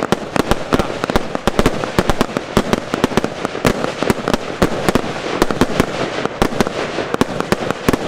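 A consumer fireworks cake firing in rapid succession: a dense, unbroken run of sharp pops and bangs, many a second, as its shots burst into colored stars.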